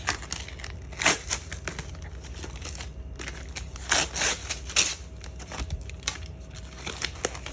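Gift wrapping crinkling and tearing as a present is opened by hand, in irregular rustles that are loudest about a second in and between four and five seconds in.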